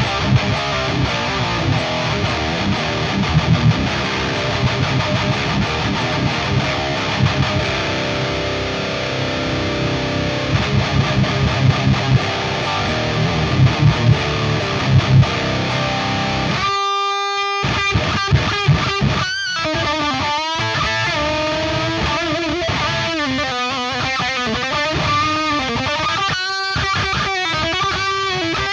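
Distorted electric guitar played through the Peavey Invective amplifier's high-gain lead channel with its built-in noise gate on: heavy chugging riffs, then an abrupt gated cut to silence about two-thirds of the way in, followed by sustained lead notes with bends and vibrato.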